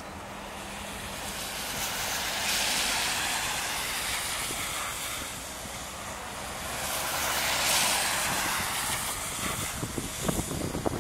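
Jet engine noise of a Boeing 777-21H airliner touching down and rolling out along the runway, a steady hiss that swells twice, about two seconds in and again about seven seconds in. Gusts of wind buffet the microphone near the end.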